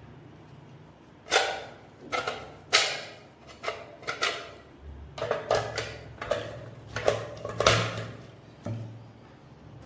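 Metal parts being handled, with a dozen or more sharp, irregular clicks and clacks.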